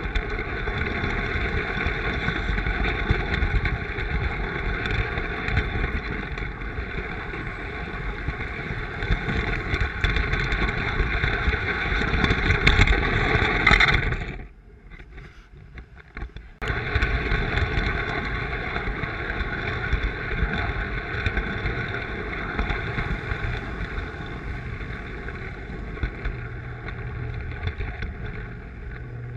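Lionel three-rail toy train running along tubular track, a steady mechanical rolling and motor noise picked up close by. It drops almost away for about two seconds midway, then resumes, and a steady low hum joins near the end.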